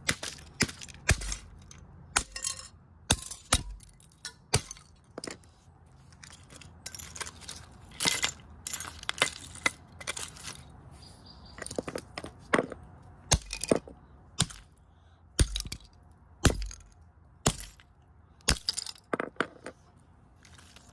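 Hammer blows smashing a Sylvania alarm clock radio: repeated sharp strikes at an irregular pace, several with a short crunch of cracking and breaking parts.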